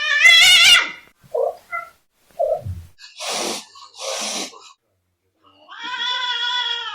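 Angry cats in a fight. A loud, wavering yowl opens, followed by short low growls and two harsh hisses, and a long drawn-out yowl near the end.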